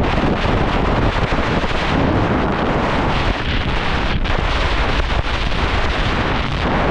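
Loud, steady wind rushing over a GoPro 11's microphone at riding speed, mixed with the rumble and scrape of a snowboard running over snow.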